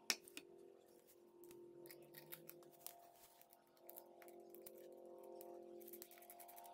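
Faint light metal clicks and ticks as a steering damper and its mounting hardware are handled and fitted by hand: one sharp click just after the start, then scattered small clicks that come faster near the end, over a faint steady hum.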